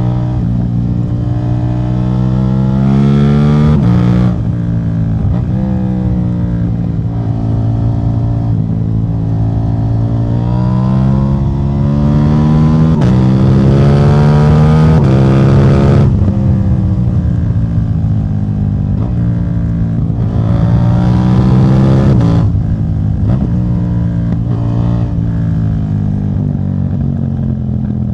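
KTM 790 Duke's parallel-twin engine running with its catalytic converter removed. The engine note climbs and drops off sharply three times, with the longest and loudest climb peaking about two-thirds of the way through.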